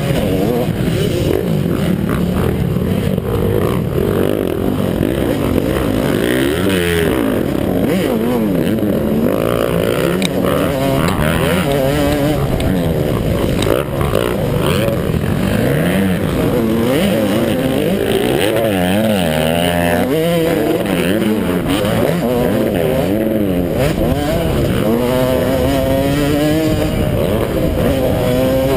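Motocross bike engine at racing load, its revs rising and falling over and over as the rider accelerates, shifts and backs off around the track. It is loud and close, as heard from a camera riding on the bike or rider.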